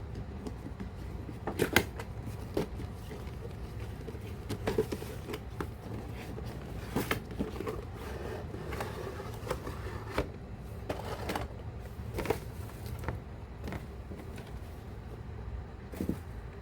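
Figure packaging being handled by hand: scattered clicks, taps and rustles of plastic and cardboard over a steady low hum.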